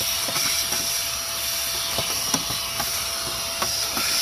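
Small handheld vacuum cleaner running with a steady hiss, its nozzle sucking sand and debris out of a plastic air filter box, with a few small clicks.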